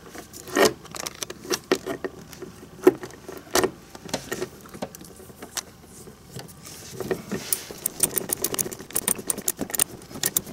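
Socket wrench tightening small bolts on a metal mounting bracket: scattered metal clinks and knocks, then fast, even ratchet clicking from about seven seconds in.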